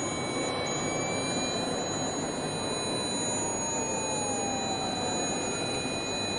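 Several mobile phones playing steady high sine tones from a frequency-generator app, layered over a steady wash of background noise. A fainter tone slides slowly down in pitch about halfway through.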